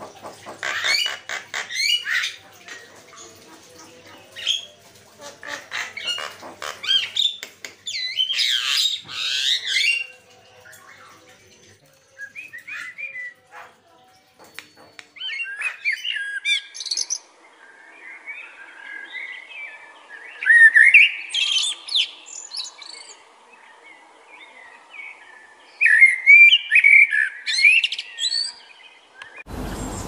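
Javan myna giving rapid runs of harsh, chattering and whistled calls. About halfway through, common blackbird song takes over: fluted, warbling phrases a few seconds apart, each ending in a high, squeaky twitter, over a faint steady hiss.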